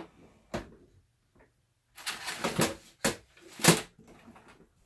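Handling noises: a knock, a rustle lasting nearly a second, then a sharp click and a louder knock, with faint small taps after.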